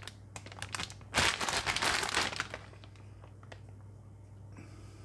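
Plastic bag of frozen chicken bites crinkling as it is handled and turned over. A few light crackles come first, then a dense, loud crinkle lasting about a second and a half from just over a second in, then a few soft clicks.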